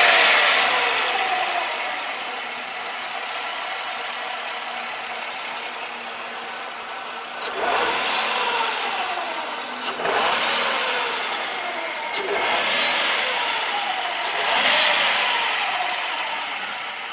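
Jaguar XJR6 straight-six engine idling with the bonnet open, then revved four times in short throttle blips, each dropping back to idle. A thin high whine runs over the engine sound.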